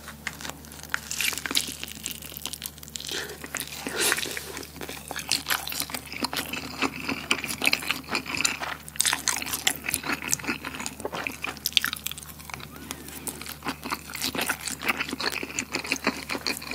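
Close-miked chewing of a chewy rice-paper wrap filled with spicy Buldak stir-fried noodles: a continuous run of mouth clicks and smacks, with a bite at the start.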